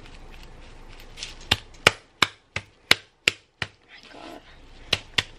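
Plastic spice shaker bottle shaken hard over a bowl, each stroke giving a sharp tap: a run of taps about three a second, a short pause, then more taps near the end.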